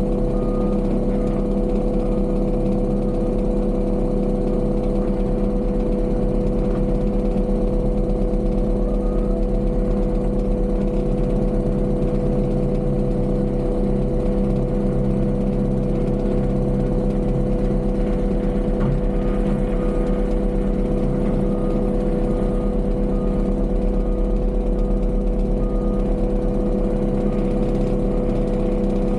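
Heavy construction machine's engine running steadily at a constant speed, with a strong hum. About two-thirds of the way through, faint evenly spaced beeping joins in.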